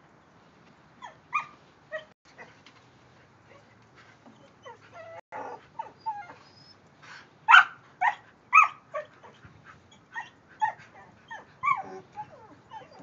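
Dog yipping: a string of short, high-pitched yelps and whines, many falling in pitch, loudest a little past halfway through.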